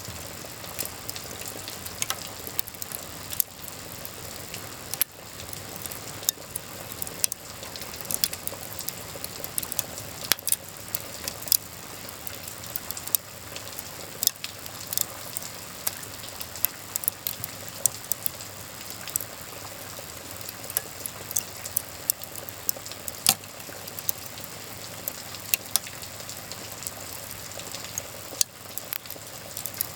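Wood fire in a fireplace crackling, with frequent irregular sharp pops over a steady hiss of rain.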